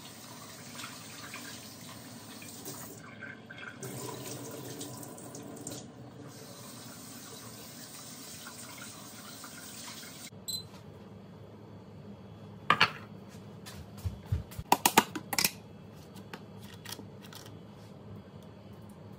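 A kitchen faucet runs water into a metal pot for about ten seconds, then cuts off abruptly. After that come several sharp clanks and knocks of cookware being handled, with the loudest cluster about fifteen seconds in.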